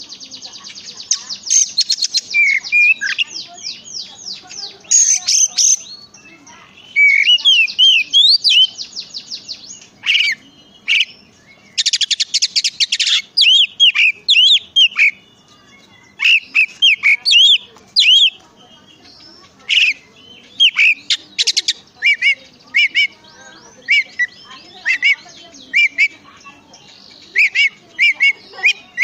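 Oriental magpie-robin (kacer) singing: runs of fast rattling trills alternating with short, sharp whistled notes that slide up and down, with a brief lull about halfway through.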